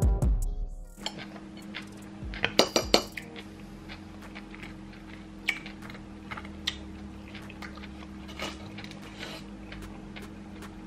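A metal fork clinks and scrapes in an aluminium-foil packet and against dishes while picking at baked fish. There is a quick cluster of sharp clinks about two and a half seconds in, then single taps every second or two, over a steady low hum.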